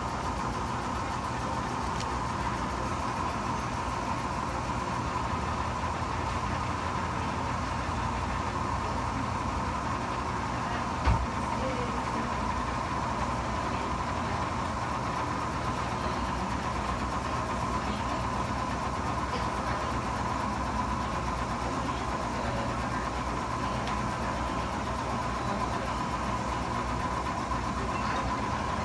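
Laser engraving machine running while it etches a glass whiskey bottle: a steady machine hum with a steady whine over it. A single knock comes about eleven seconds in.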